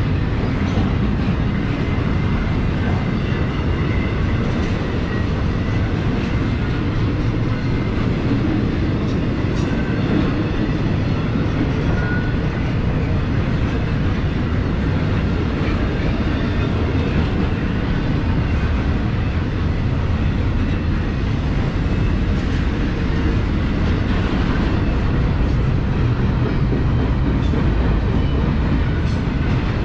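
Norfolk Southern intermodal freight train's container-laden well cars rolling past: a steady rumble of steel wheels on rail, with some clickety-clack.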